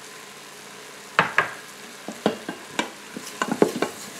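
A bamboo spurtle stirring flour into browned ground beef in an Instant Pot's stainless steel inner pot. It gives a series of irregular scrapes and knocks against the pot, starting about a second in, over a faint steady sizzle from the meat cooking on sauté.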